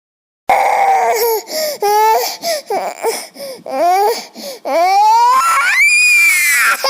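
A young boy crying: broken, choppy sobs starting about half a second in, then long wails that rise and fall in pitch.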